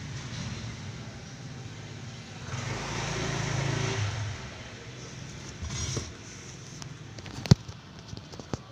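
A motor vehicle engine running, swelling louder for about two seconds in the middle as if passing or revving, with a single sharp knock near the end.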